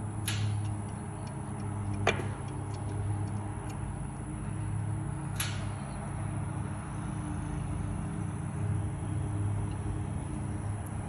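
Aermotor windmill clunking: three irregularly spaced sharp clunks, the loudest about two seconds in, over a steady low rumble.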